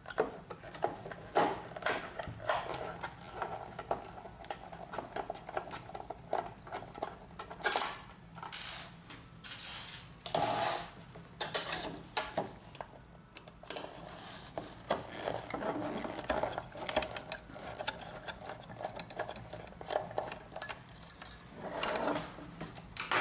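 Hand screwdriver unscrewing the wiper-blade screws of a plastic laser-printer drum unit: many small clicks, scrapes and short rasps of the screwdriver and the plastic cartridge being handled, with a few louder scrapes around the middle.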